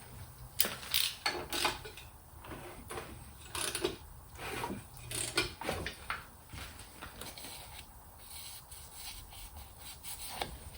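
Irregular rubbing and scraping strokes on a bare small-block Chevy 350 engine during teardown, as a cylinder is worked and inspected by hand.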